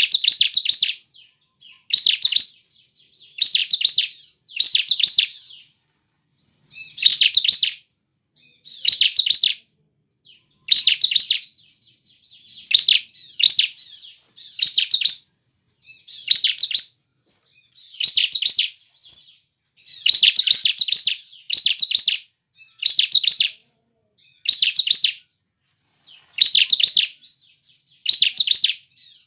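Bar-winged prinia (ciblek) singing: short, loud bursts of rapid trilled notes, repeated about every two seconds.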